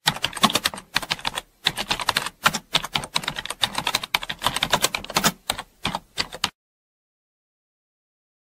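Typing sound effect: a rapid, uneven run of keystroke clicks that stops abruptly about six and a half seconds in.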